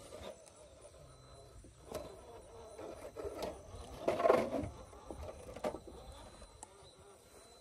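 Radio-controlled rock crawler working its way down broken concrete slabs: a faint electric motor whir with its tyres and chassis knocking on the concrete several times, and a louder clatter about four seconds in as it drops down the step.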